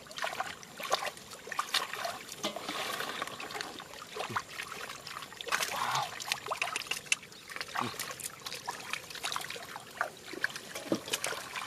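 Water trickling and splashing, with many short sharp splashes and knocks scattered throughout.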